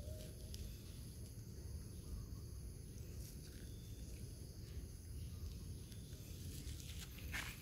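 Outdoor ambience: a steady low rumble under a faint, steady high-pitched hum, with a short, sharp noise near the end.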